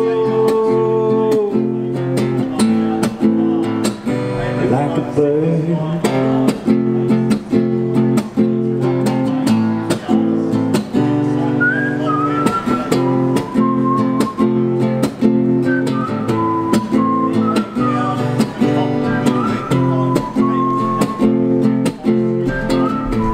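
Acoustic guitar strummed in a steady rhythm of repeated chords. A higher melody line joins over it about halfway through.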